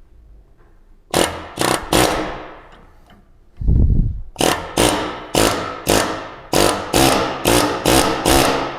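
Pneumatic air chisel hammering in short bursts, three at first, then about nine in quick succession, as it is driven into a front anti-roll bar bushing to split it.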